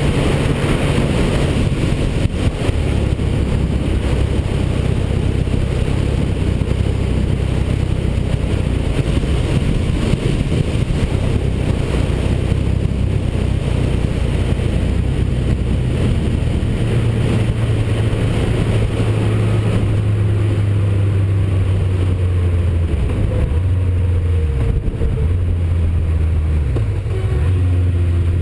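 Honda CB750 motorcycle engine running at cruising speed, heard with heavy wind noise on the camera microphone. In the last several seconds the engine note shifts and breaks up a few times as the bike slows for a bend.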